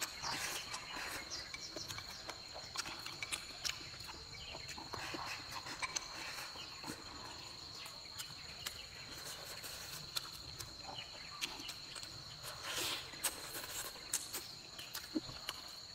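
Close-up eating sounds: chewing a mouthful of rice and fish, with small clicks of wooden chopsticks against a bowl, scattered throughout. Behind them a steady, high insect call keeps on.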